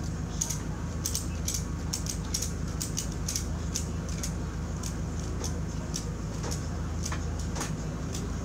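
Ratchet strap being cranked by hand: a run of sharp metallic clicks, a few a second, over a steady low hum.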